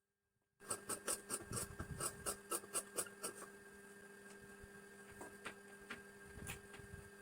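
Hand work on blouse fabric at the cutting table: quick scraping strokes for the first few seconds, then a softer, steady rubbing with a few light clicks, over a steady hum.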